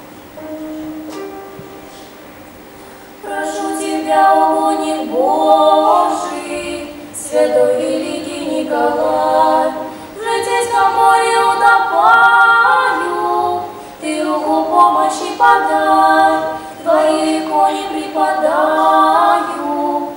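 Two girls singing a slow sacred song in Russian addressed to Saint Nicholas, in phrases with short pauses between them. After a quiet start, the singing comes in about three seconds in.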